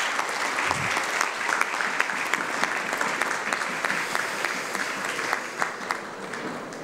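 Audience applauding: many hands clapping in a dense patter that gradually thins and fades toward the end.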